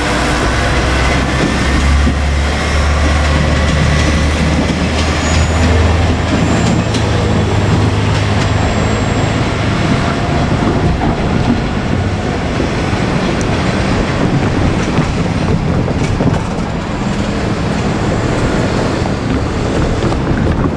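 Diesel railcar train running past at close range. A low engine hum is strongest in the first half and then fades, over steady wheel-on-rail noise with a few thin high squeals.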